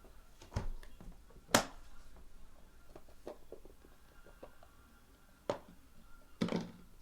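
Trading cards and their holders being handled: scattered sharp clicks and taps, the loudest about a second and a half in, with a few more near the end.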